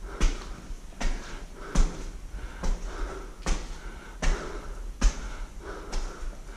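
Footsteps walking steadily through a mine tunnel, one step about every 0.8 seconds, each with a short crunch.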